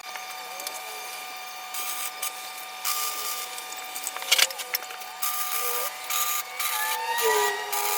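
Workshop hand-tool work: irregular rasping strokes against metal, with a sharp click about four seconds in and a few squeaks near the end.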